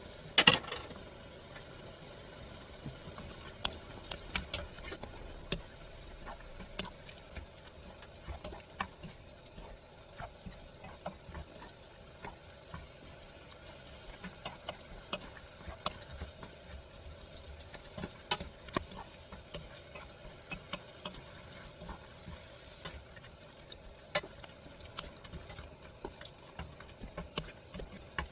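Stir-frying in a frying pan: a utensil clicks and scrapes against the pan in irregular sharp taps over a low steady background, with one louder knock about half a second in.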